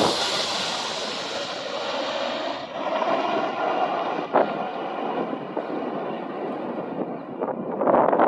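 Jet engine noise from a twin rear-engined business jet on approach, strong and hissy just after it passes low overhead. About three seconds in it changes to a duller, steadier jet rumble, with a few brief bumps.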